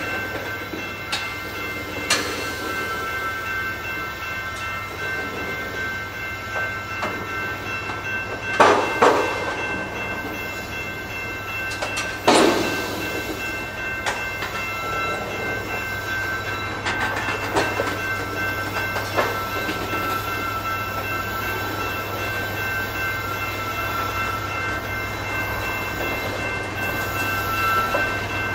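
Tank cars of a freight train rolling slowly past on the rails, with wheel clicks, a steady high whine and a low steady hum. Sharp metallic bangs sound twice in quick succession about a third of the way in and once more a few seconds later.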